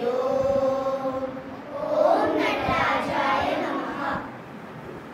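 A group of children chanting a prayer in unison, in two long held phrases; the second ends about four seconds in.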